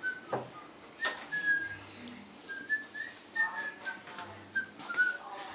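A person whistling a short wandering tune, single notes with small pitch steps and gaps between them. A few sharp knocks come in the first second.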